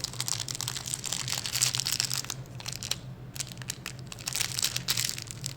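Small plastic bag crinkling and crackling as it is handled and worked open, with a brief lull about halfway through.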